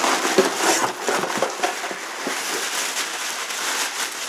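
Crinkling and rustling of wrapping being pulled off a small ornament, with a steady stream of small crackles, busiest in the first couple of seconds.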